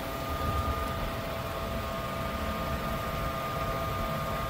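Fuel station diesel dispenser running: a steady mechanical hum over a low rumble, with two faint steady whining tones that come in about half a second in.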